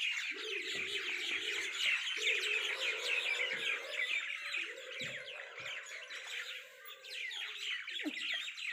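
Many small birds chirping at once in a dense, continuous chatter of short, quick calls, with a low steady hum underneath that fades out near the end.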